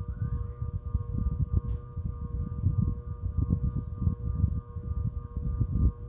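Evergo 52-inch wood-housing ceiling fan turning at a low solid-state speed setting, its draft giving an uneven, fluttering low rumble. A steady high whine of several tones holds throughout, and it is not coming from the fan.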